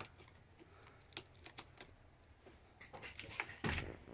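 Faint scattered clicks and light taps of hands and the camera moving about a truck cab, with a louder dull thump about three and a half seconds in.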